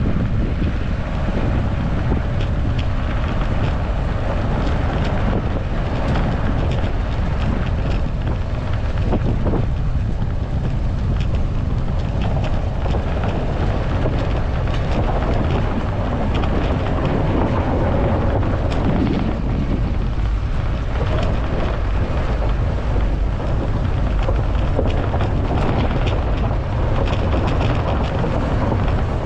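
Mercedes-Benz car driving slowly over a rough dirt and gravel track: a steady low rumble of engine, tyres and wind on the microphone, with scattered knocks and clicks from stones under the tyres.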